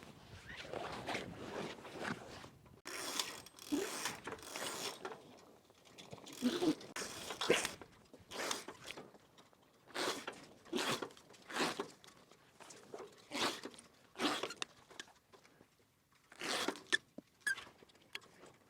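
Irregular rustling, scraping and clattering of things being handled, in short uneven strokes with gaps between them.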